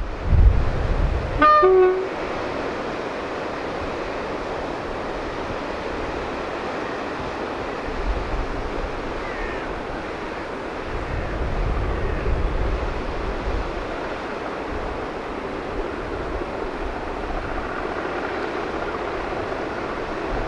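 A diesel locomotive's horn sounds once, briefly, about a second and a half in, after a short low rumble. Steady surf and wind noise follows, with occasional low rumbles.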